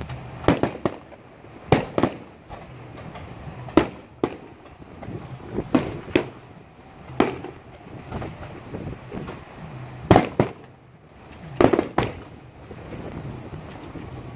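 Aerial fireworks shells bursting: about a dozen sharp bangs at uneven intervals, often in quick pairs, some with short echoing tails, over a low steady hum.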